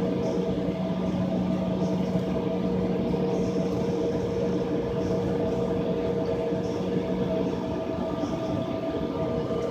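Steady hum inside an airliner's cabin on the ground, with several steady droning tones and no change in level.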